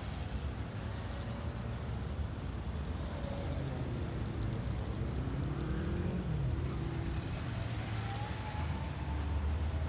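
A steady low rumble of a motor vehicle running, with a few faint gliding tones in the middle.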